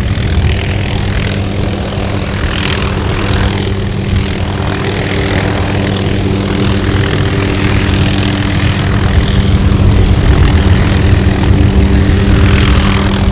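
Helicopter running steadily, engine and rotor giving a constant drone with a steady low tone, growing a little louder in the second half.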